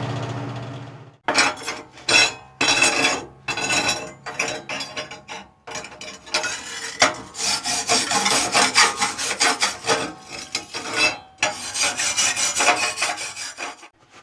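Steel test welds being scraped and scrubbed by hand in quick, irregular strokes, as when cleaning flux-core slag and spatter off the beads. A steady low hum dies away about a second in.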